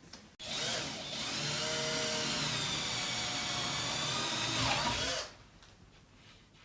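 Electric drill running steadily for about five seconds, dipping in pitch just before it stops.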